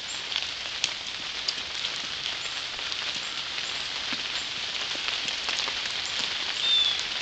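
Steady rain falling on a wet asphalt driveway and lawn: an even hiss with scattered faint drop ticks. A brief high chirp sounds near the end.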